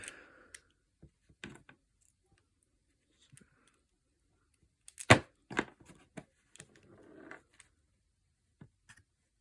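Scattered clicks of an American Lock 1105 padlock and its removable core being handled during a core swap, with one sharp click about five seconds in followed by a few lighter clicks.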